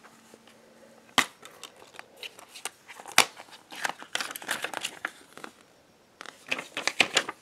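Plastic Blu-ray case being handled and opened: two sharp clicks, about one and three seconds in, then spells of rustling and light clicking as the paper insert is pulled out of the case.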